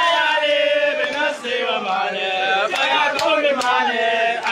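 Men chanting an Arabic devotional poem in a melodic, sustained voice through a microphone and loudspeaker.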